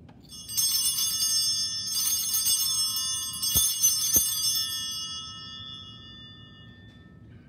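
Altar bells rung three times in quick shaken bursts at the elevation of the chalice during the consecration, then left ringing and slowly dying away.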